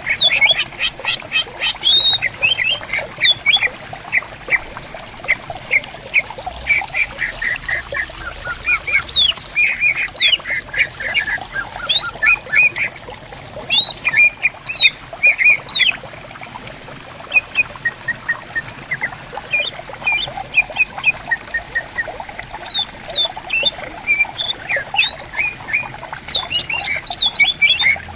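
Greater green leafbirds (cucak ijo) singing and answering each other in rapid strings of sharp, chattering notes, with a couple of brief lulls. Underneath is the steady hiss of a gently flowing stream.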